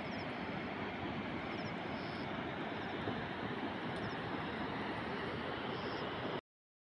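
Steady rushing noise with a few faint high chirps, cutting off suddenly about six seconds in.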